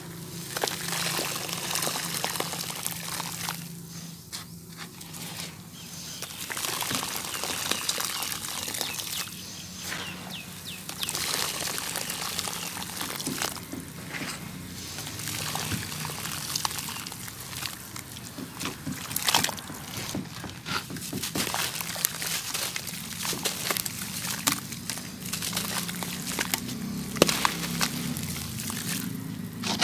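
Water in a bucket fizzing and crackling with many tiny pops as air bubbles rise out of dry cement sand soaking in it. Near the end, a few louder crunches and splashes as a mound of wet cement sand is pushed into the water.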